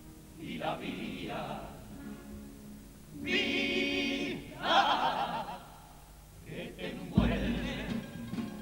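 A carnival comparsa choir singing in harmony, in sung phrases with short breaks between them. A deep thump comes in about seven seconds in.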